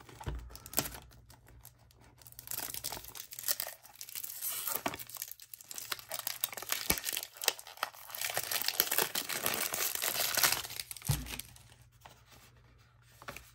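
Cellophane shrink-wrap being picked at and peeled off a small cardboard perfume box, crinkling and tearing in irregular fits, most steadily in the second half. A soft knock near the end as the box is set down.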